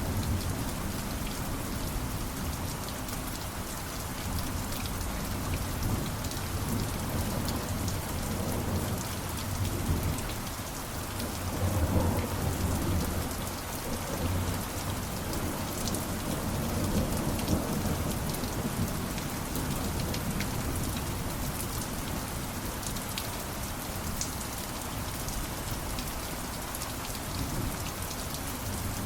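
Steady heavy rain, with fine drop ticks over an even hiss, and a low rolling rumble of thunder that swells in the middle and is loudest about twelve seconds in.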